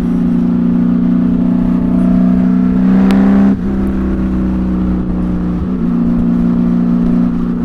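Honda Valkyrie flat-six engine through Cobra six-into-six pipes, running steadily at road speed. The engine note dips briefly about three and a half seconds in, then picks up again.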